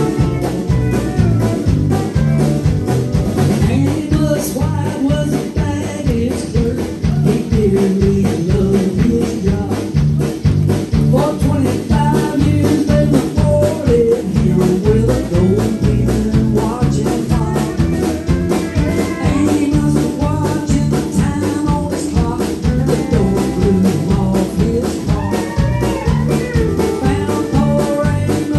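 Live band playing a song with a steady beat on drum kit, with electric guitar, bass guitar and keyboard, and a singer's vocals.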